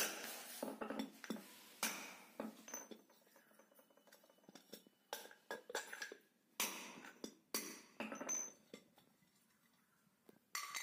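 Light metal taps and clinks as a tool knocks the ball bearing out of a ceiling fan's cast end cover. The taps come irregularly, some in quick pairs, with a quieter stretch in the middle.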